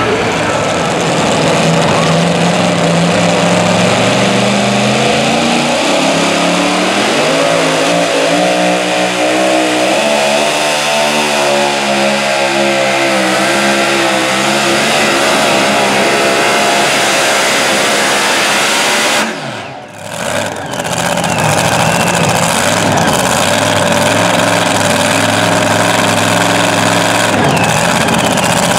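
Supercharged pulling truck's engine running hard and loud, its pitch climbing and wavering as it revs on a pull. The sound cuts out sharply for about a second about two-thirds of the way through, then the engine runs on more steadily.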